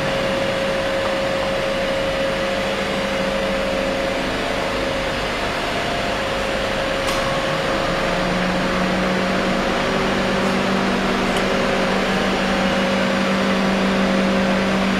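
Steady mechanical hum over even noise, with a low droning tone that grows stronger about halfway through.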